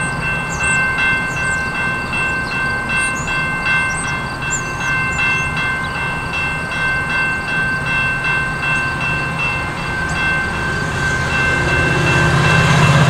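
Railway crossing warning bell ringing in a rapid steady rhythm while the gates are down, over the low rumble of a train at the crossing, which grows louder near the end.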